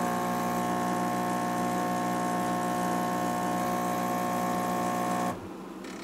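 Gaggia Brera super-automatic espresso machine's pump humming steadily while it brews a shot of espresso, then cutting off abruptly about five seconds in as the shot ends.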